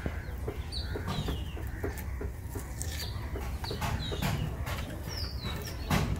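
Hens clucking and a small bird repeating short falling chirps about once a second, over a low steady rumble.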